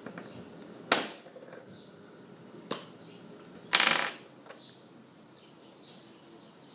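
Three sharp clicks of small hard objects knocking together, the last a brief rattle.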